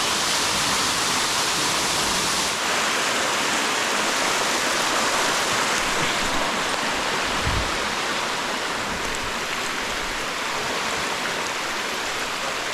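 Steady rush of running water from a canyon stream and waterfall.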